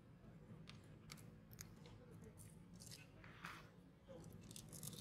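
Faint, scattered crunches and clicks of a baby macaque gnawing and chewing on a scrap it holds in its hands, with a slightly louder crunch about three and a half seconds in.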